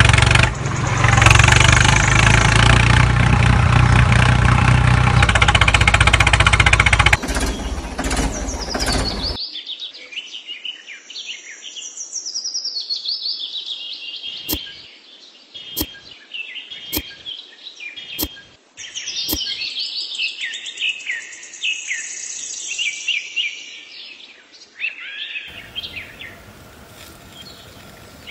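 Loud music for the first seven seconds or so, fading out, then birds chirping and trilling. Five sharp clicks about a second apart sound in the middle of the birdsong.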